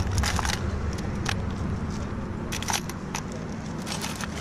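Old metal skeleton keys and key rings clinking and jangling as a hand sorts through a box of them, with a handful of sharp separate clinks spread throughout.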